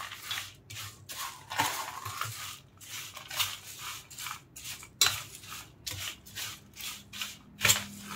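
Metal spoon stirring and tossing a dry, crunchy fried poha namkeen mix in a stainless steel plate: repeated rustling scrapes of flakes and nuts, with the spoon striking the plate sharply twice, about five seconds in and near the end.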